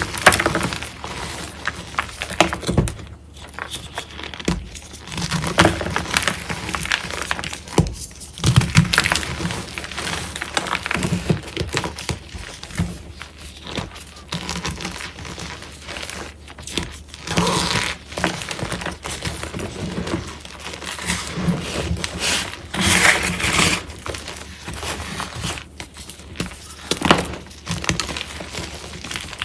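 Reformed gym chalk blocks crunching and crumbling as they are crushed: a steady run of irregular crackling crunches, with louder breaks now and then.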